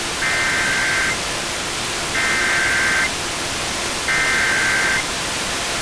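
Emergency Alert System SAME header: three identical bursts of high-pitched digital data tones, each about a second long and about a second apart, over steady FM reception hiss. The bursts carry the coded Severe Thunderstorm Warning.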